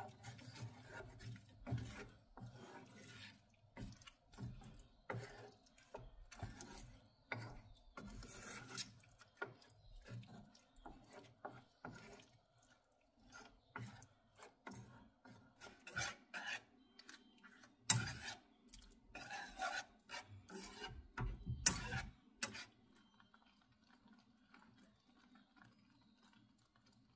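Wooden spoon scraping and stirring through thick sausage gravy in a frying pan, in irregular strokes with a few sharper knocks against the pan. The stirring stops about 22 seconds in, leaving only a faint steady hum.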